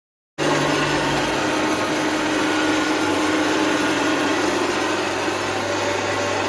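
Cassava flour milling machine with a cyclone, running: a loud, steady whir over a constant low hum, starting abruptly about half a second in.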